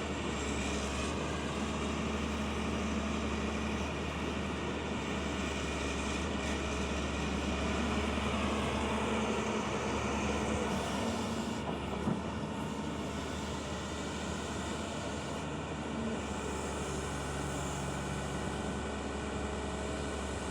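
Excavator engine running steadily, with one brief knock about twelve seconds in.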